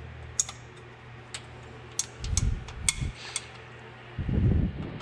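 Light metallic clicks and taps as a flexible magnetic pickup tool probes a valve-lifter bore in a Ford 200 inline-six block, fishing for a lifter. Two short low rumbles come in about two and four seconds in, over a steady low hum.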